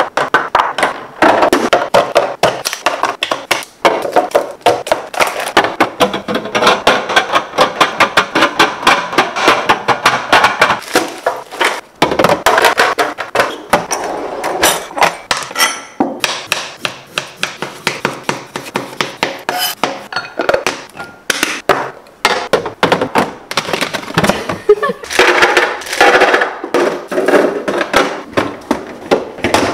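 Hard plastic containers and kitchen items clattering and clinking as they are handled and set down while a fridge is stocked, a rapid, continuous run of sharp knocks and clinks.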